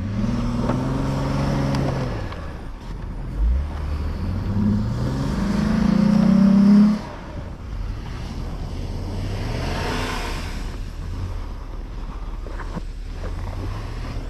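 Vehicle engine revving while pushing through deep snow. The revs climb over a few seconds to the loudest point about seven seconds in, then drop off sharply, and the engine runs on lower.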